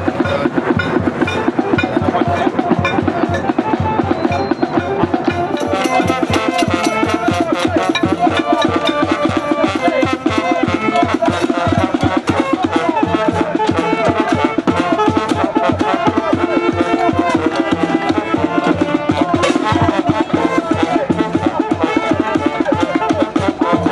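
Hand drums and percussion noisemakers beaten in a fast, steady beat, with voices shouting or chanting over them from about six seconds in.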